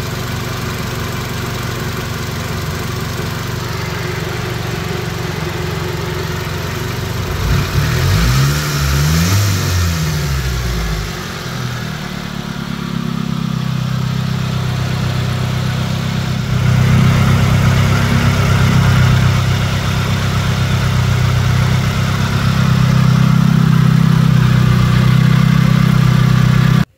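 Turbocharged inline-four engine running on its first start after a new turbo oil feed line was fitted. It idles, is revved up and down a few times about eight seconds in, then runs louder at a faster idle.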